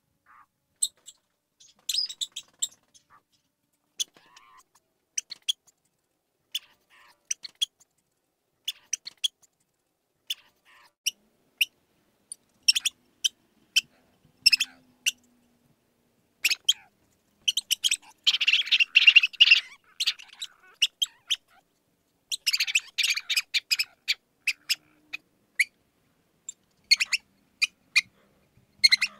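Mouse squeaking: short high-pitched squeaks in scattered bursts, with a rapid, dense flurry about two-thirds of the way in.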